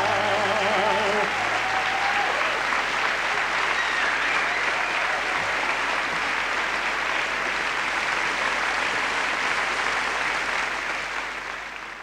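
Audience applauding. A man's held sung note, with a wide vibrato, ends about a second in, and the applause fades out near the end.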